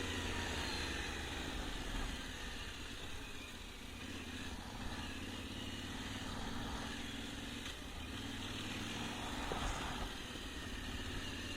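Yamaha Ténéré 700's parallel-twin engine running at low, steady revs.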